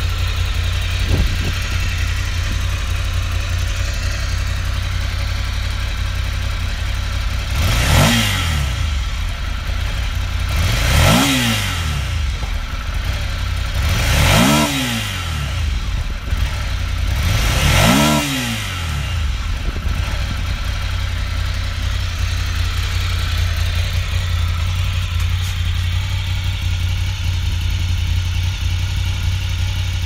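2018 Ducati Monster 797's air-cooled L-twin idling steadily, with four quick throttle blips about three seconds apart starting about a quarter of the way in. Each blip rises sharply in pitch and falls back to idle.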